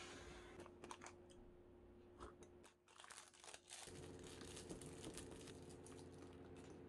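Faint crinkling and rustling of a clear plastic snack wrapper being handled, with a few light clicks.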